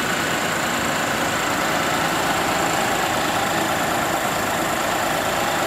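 Lexus car engine idling steadily, a constant hum with no change in speed.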